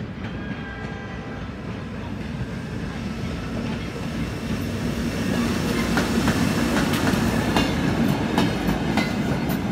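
SBB Re 4/4 I electric locomotive hauling a short freight train of flat wagons past as it departs. Its running rumble grows steadily louder as it approaches. From about six seconds in, a series of wheel clacks over rail joints and points follows as the wagons roll by.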